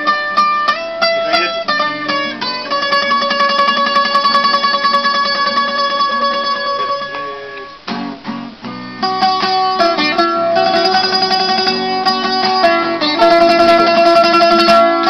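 Two acoustic guitars playing a tune together, with a short break about eight seconds in before the playing picks up again.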